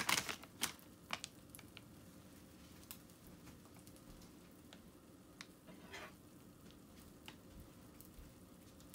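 Oatmeal pancakes frying in oil in a cast-iron skillet: a faint steady sizzle with scattered small pops and crackles. In the first second or so there are a few crinkles from a plastic bag of shredded cheese.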